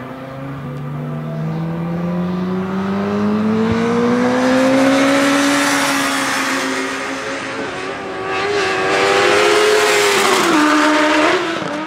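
Honda CBR1000RR inline-four engine at high revs under hard acceleration. Its note climbs steadily for about five seconds, eases, climbs again, then drops sharply near the end as the throttle is closed.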